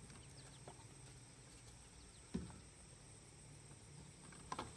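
Near silence: a faint steady hum and a thin high tone, with three soft clicks, the loudest about halfway through.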